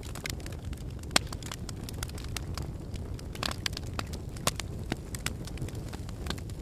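Wood fire burning in a fireplace, crackling and popping over a low steady rumble, with one sharp snap about a second in.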